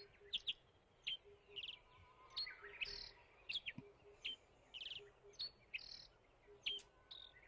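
Wild songbirds chirping: many short, high chirps and quick trills, a few each second.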